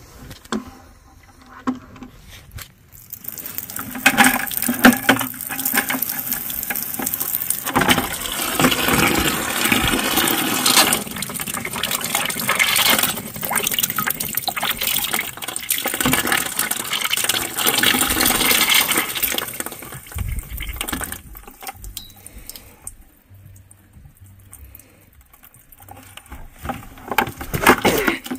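Water gushing and splashing. It builds up a few seconds in, runs strongly for about sixteen seconds, then dies away, with a few knocks near the end.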